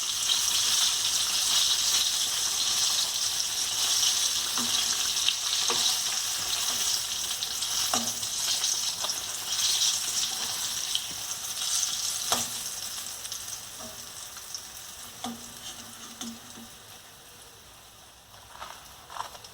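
Breaded chicken pieces deep-frying in hot oil, a dense crackling sizzle that fades away over the second half. A few sharp clicks of a metal utensil against the pan come through the sizzle. The pieces are done after about 12 minutes of frying and are being lifted out.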